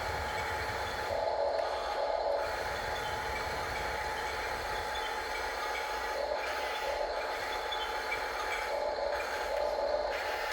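Electric motors and gears of radio-controlled model construction machines whirring steadily, with a fixed whine and a few brief louder surges.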